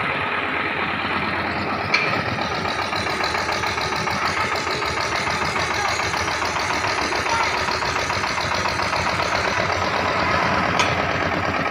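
Engine of a trailer-mounted borewell drilling rig running steadily, with a brief knock about two seconds in and another near the end.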